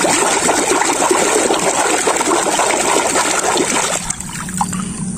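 Water sloshing and splashing as a hand swishes a plastic toy crab back and forth in a tub of water, easing off about four seconds in.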